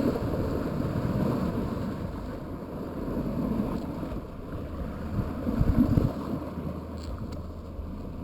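Wind rumbling on the microphone outdoors by the water, a rough, uneven noise that swells about five and a half seconds in.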